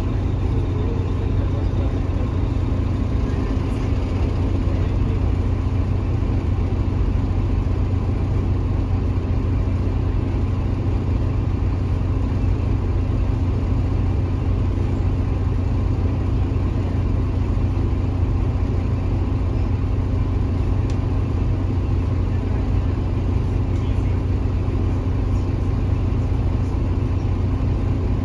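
Inside the cabin of a Mercedes-Benz OH1830LE bus: its Mercedes OM926 six-cylinder diesel engine running at a steady speed with a deep, even rumble.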